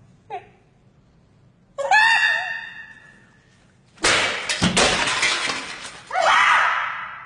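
A high wavering cry, then a loud crash of something breaking and shattering that lasts about two seconds, followed by another cry that fades away.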